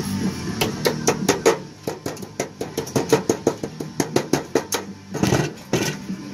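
Hammer tapping down the fold-over flap of a hand-cut aluminium eavestrough miter corner: a quick run of light metallic taps, several a second, for about four seconds. A short scraping noise follows about five seconds in.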